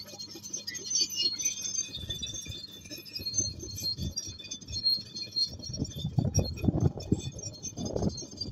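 Bulldozer working, with irregular metallic clinking and squeaking, typical of its steel tracks. Uneven low rumbling comes in about halfway through.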